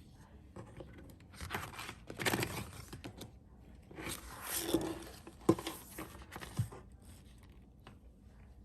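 Hands handling a paper planner: bursts of rustling and crinkling of paper and plastic, with a sharp tap about five and a half seconds in and a soft thump a second later.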